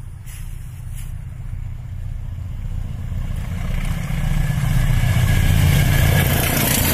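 Diesel locomotives hauling a passenger train approach, engines droning and growing steadily louder, with rising wheel and rail noise as the train draws level near the end.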